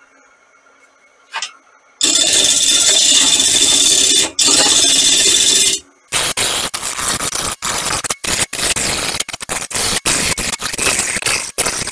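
Gouge cutting into a spinning olive-wood blank on a wood lathe. After about two seconds of quiet, a loud steady cutting hiss runs for about four seconds, then turns choppy, broken by many brief gaps.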